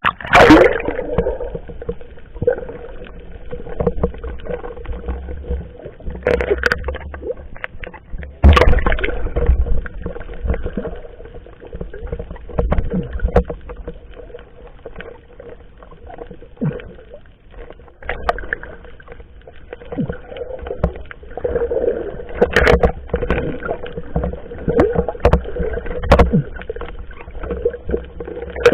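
Water sloshing and splashing around a small fishing boat, with irregular knocks and a steady hum underneath. The strongest splashes come right at the start and about eight seconds in.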